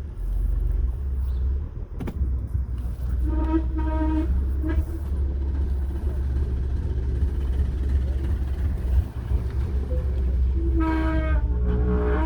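2016 Porsche Macan S driving forward with a steady low rumble, and a pitched groaning noise that comes in about three to five seconds in and again near the end. This is the grinding noise the car makes when driving forward.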